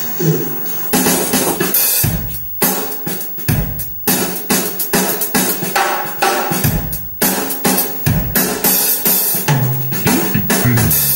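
Drum-led music with bass, played back through a pair of DML (distributed-mode, flat-panel) bookshelf speakers and heard in a small room.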